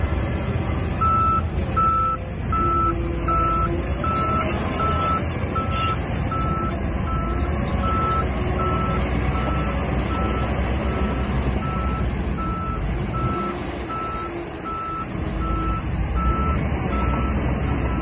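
Shantui DH17C3 crawler bulldozer's engine running steadily, with its reversing alarm beeping at an even pace, about three beeps every two seconds, as the dozer backs up. The beeping stops shortly before the end.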